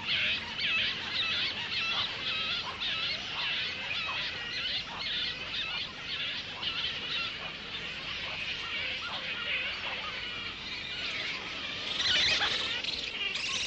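A roosting colony of grey-headed flying foxes calling: many overlapping high squeals and chattering squabbles, a little louder near the end.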